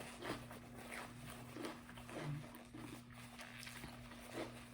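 Faint chewing and mouth sounds of someone eating, soft and regular, over a steady low hum.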